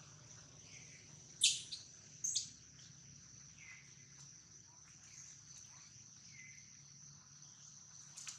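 Steady high-pitched drone of insects, with a few faint short chirps and two sharp, loud sounds about one and a half and two and a half seconds in.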